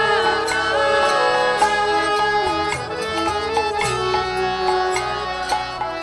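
Bengali devotional kirtan music: a melody line sliding between notes over drum strokes.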